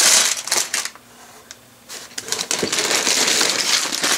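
Sealed plastic bags of LEGO pieces crinkling and rustling as they are handled and set down on a table, with small clicks of the bricks shifting inside. The rustling pauses about a second in, then starts again.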